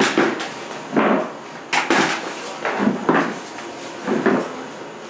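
A handful of short knocks and rustles, about one a second.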